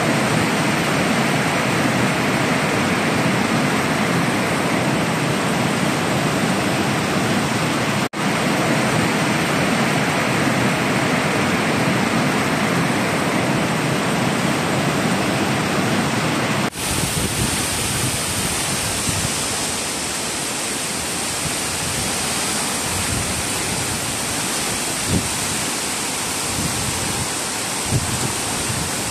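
Heavy tropical rain pouring down in a dense, steady hiss. The character of the rain shifts abruptly twice as the shots change, and near the end a couple of brief knocks stand out over it.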